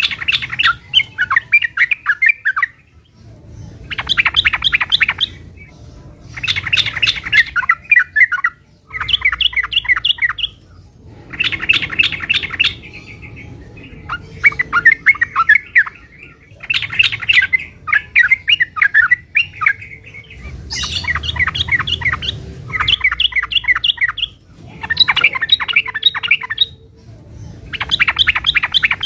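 Yellow-vented bulbul singing in its excited 'fighting' mode: about a dozen bursts of rapid, bubbling chatter, each a second or two long, coming every two to three seconds.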